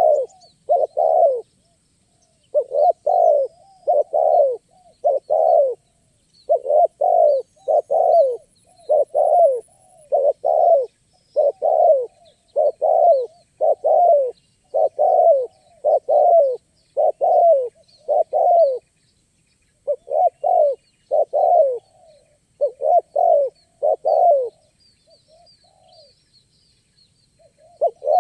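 Spotted dove (tekukur) cooing: a long series of low coo notes, about two a second in short groups, with a short break near the end. Faint high chirps of small birds sit behind it.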